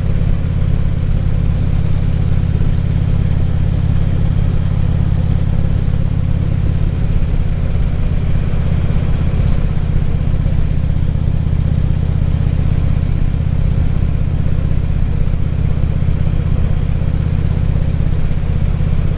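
Harley-Davidson Ultra Classic Limited's V-twin engine running steadily under way, a low even drone, with rushing wind and road noise over the helmet microphone.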